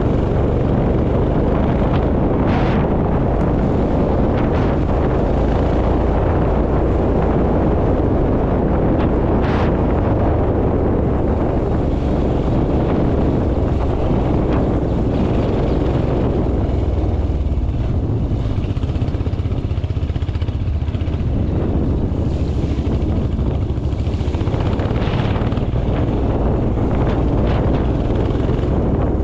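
Royal Enfield Himalayan's single-cylinder engine running steadily while the motorcycle is ridden off-road, with a couple of brief sharp clicks early on.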